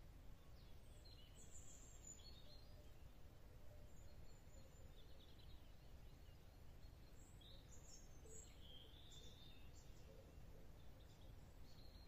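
Faint small-bird song in woodland: scattered high chirps and short twittering phrases throughout, over a low steady rumble of background noise.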